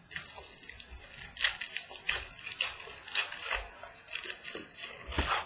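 Crinkling and rustling of foil trading-card pack wrappers being handled, in quick irregular bursts several times a second.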